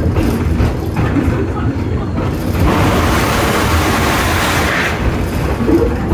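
Steam-hauled passenger train running, heard from a riding car: a steady low rumble of the cars on the track, with a rushing hiss that swells from about two and a half seconds in and dies away near five seconds.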